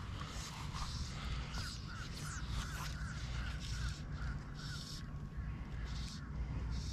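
Birds calling: a quick run of about ten short repeated notes, about four a second, in the middle, with scattered higher chirps throughout, over a steady low rumble.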